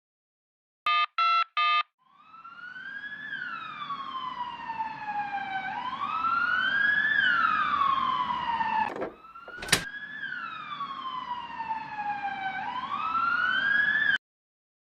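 Three short electronic beeps, then a siren wailing in slow rising and falling sweeps, with a sharp click partway through; it cuts off suddenly near the end.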